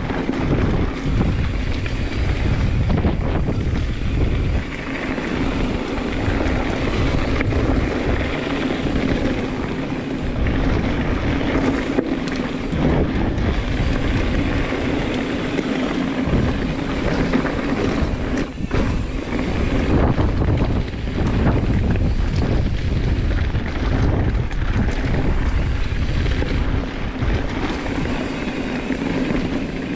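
Wind buffeting an action camera's microphone on a hardtail mountain bike riding down a rough trail, with the bike rattling and knocking over the ground and a faint steady hum.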